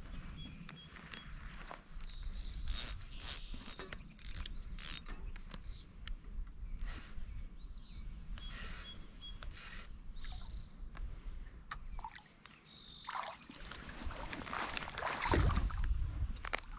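Spinning reel working a hooked fish: the reel's mechanism clicks and whirs in short spells, loudest a few seconds in. Near the end comes a louder, noisy scuffle as the fish is brought to the bank.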